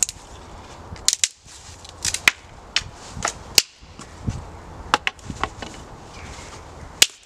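Dry dead sticks and branches being snapped apart: a dozen or so sharp cracks at irregular spacing.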